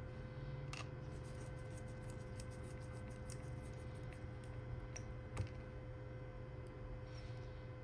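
Scattered small clicks and taps of a Samsung Galaxy A20 and tools being handled while the phone is closed up, two of them sharper than the rest, over a steady low hum.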